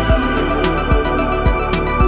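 Background music with a steady electronic beat and sustained synthesizer tones.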